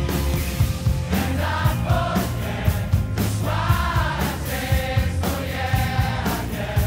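Background music: a song with bass and drums, sung vocals coming in about a second in.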